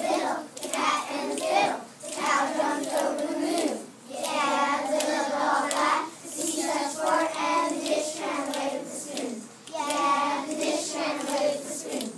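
Young children singing in short phrases of about two seconds each, with hand claps.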